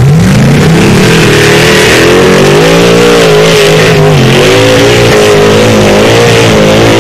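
Formula Offroad buggy's engine revving hard at full throttle on a steep sand hill-climb: the pitch rises over the first second, then wavers up and down at high revs.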